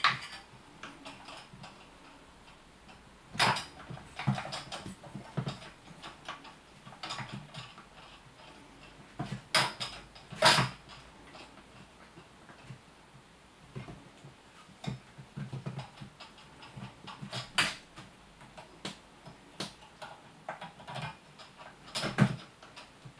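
Irregular clicks, taps and knocks as a kitten bats at and scrambles around a plastic cat toy with a wire wand on a hard tabletop. The taps come in scattered clusters, with a handful of louder knocks.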